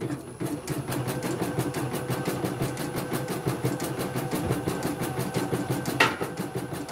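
CNY portable embroidery machine stitching, its motor and needle running with a fast, even rhythm of stitches, and one louder clack near the end. The machine has just been cleaned of caught thread.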